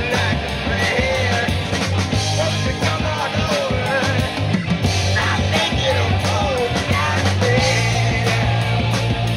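Live rock band playing: electric guitar, bass guitar, drum kit and keyboard behind a male lead vocal. The bass holds low notes and moves to a new one near the end.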